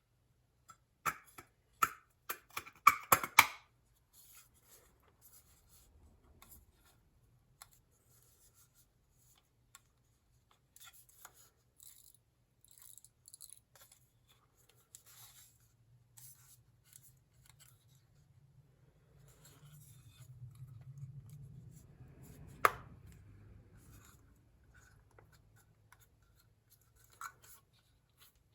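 Clicks and light taps of small hard parts being handled, with a cluster of sharp clicks near the start and one louder knock about three-quarters of the way through, over a faint low hum.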